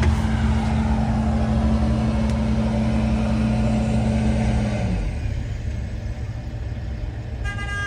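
Diesel engine of a telehandler working close by, running steadily, heard from inside a parked van. A steady hum over the engine cuts off about five seconds in, leaving the low engine rumble, and a short beep sounds near the end.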